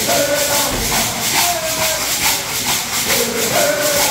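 Stomp dance: shell shakers rattling in a steady rhythm, about three shakes a second, under short held notes of singing.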